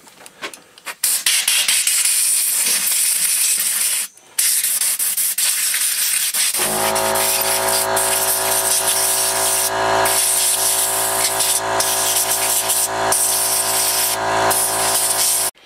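Compressed-air blow gun blasting air over and through a small-engine carburetor body to blow out dirt, a loud hiss in long bursts with a brief break about four seconds in. A steady machine hum joins about six and a half seconds in.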